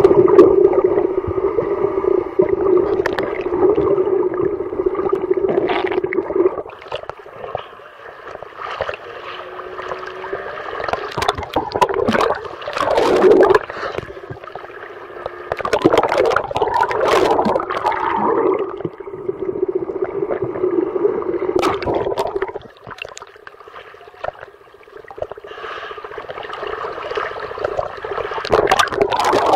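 A boat's engine droning steadily, heard underwater, with splashing and gurgling water as the camera breaks the surface in the middle; the drone drops out while above water and returns when the camera goes back under.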